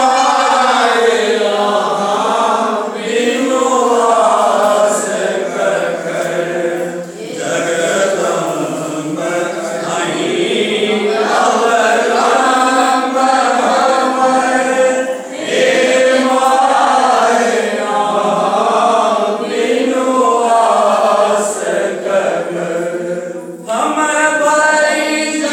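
A group of voices singing a Maithili devotional bhajan together in a chant-like unison. Long sung phrases with a short breath break between them, about every eight seconds.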